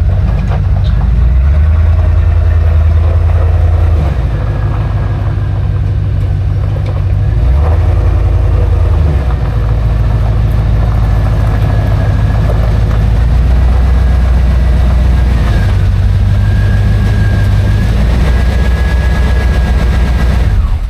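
A 1989 Chevrolet K5 Blazer's engine running loudly on the move, its pitch stepping up and down every few seconds.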